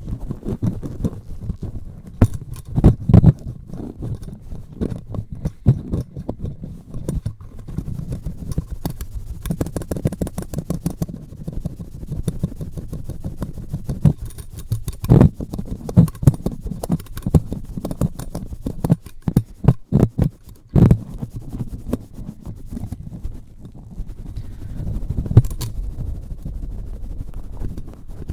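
Close-miked rubbing, scrubbing and scratching directly on a microphone, a dense crackly handling noise, with clusters of louder sharp taps and knocks on it.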